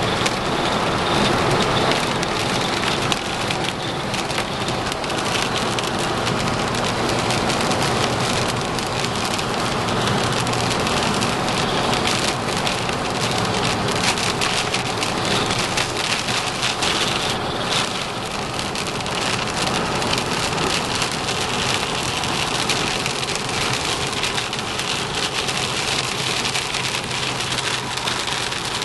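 Heavy rain falling, a dense steady patter of drops hitting a surface.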